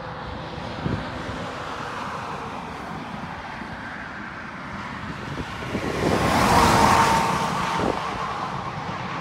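Wind noise on the microphone with road traffic, swelling to its loudest as a vehicle passes about six to seven seconds in.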